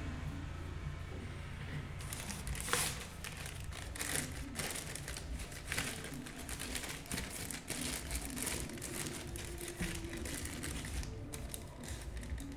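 Parcel packaging crinkling and rustling as it is handled and torn open by hand, in irregular bursts of rustling from about two seconds in.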